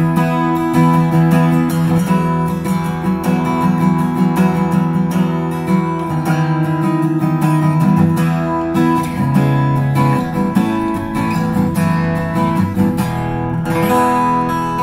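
Aria W-20D dreadnought acoustic guitar, with a spruce top and mahogany back and sides, being strummed in continuous chords.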